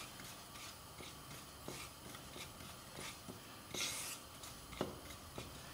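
Wooden spatula stirring and scraping sesame seeds around a dry non-stick frying pan, faint, with light scattered ticks and a louder scrape about four seconds in.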